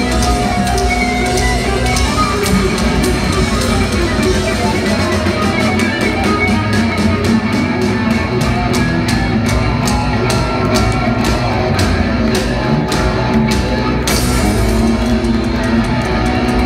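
Live progressive metal band playing loud, with electric guitar, bass, keyboards and drums heard through the hall from among the audience. A fast run of sharp drum hits builds through the middle and stops suddenly about fourteen seconds in.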